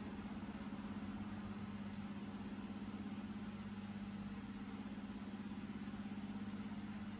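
A steady low machine hum that holds unchanged throughout.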